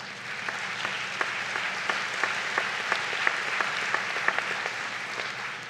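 Audience applauding: a dense patter of clapping that builds quickly as the speech stops, holds steady, and fades away near the end.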